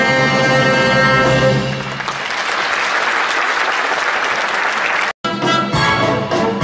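A live orchestra ends a piece on a held chord, and the audience applauds for a few seconds. After an abrupt cut near the end, the orchestra starts a new piece.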